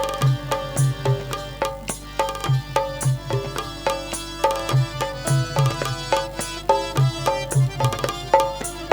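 Instrumental break in a Hindi folk song: a hand drum beats a steady rhythm under a melodic line of short, plucked-sounding notes.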